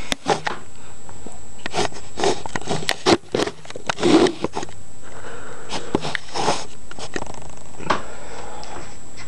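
Handling noise close to the microphone as the camera is moved and set down on bedding: irregular rustling with a few soft knocks, busiest in the first few seconds and thinning out after.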